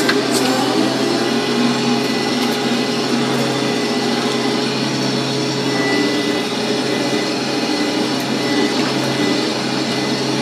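Combine harvester running steadily under load while shelling corn, heard from inside the cab: an even mechanical drone, with a sharp click right at the start.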